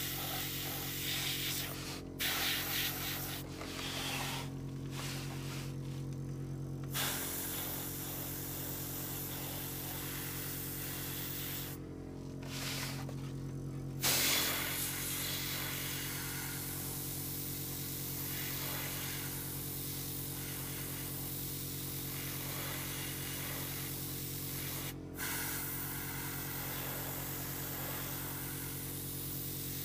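Gravity-feed airbrush spraying paint with a steady hiss that stops for a second or two several times, over a steady hum.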